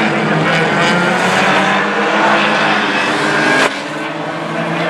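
Banger racing cars' engines running round the track. The sound breaks off sharply about three and a half seconds in and carries on a little quieter.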